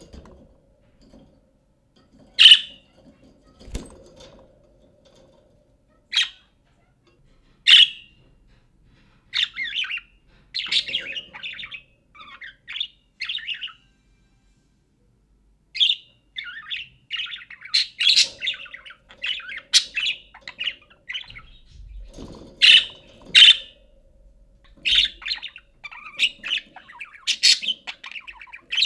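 Budgerigar calling: a few sharp single chirps in the first eight seconds, then long runs of rapid warbling chatter mixed with sharp chirps, with a short pause about halfway through.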